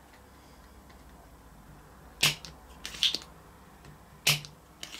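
Spring-loaded desoldering pump (solder sucker) working on a circuit board while solder is cleared from the pads of a removed capacitor: a few sharp clacks, one about two seconds in, one a second later, and a loud one near four seconds.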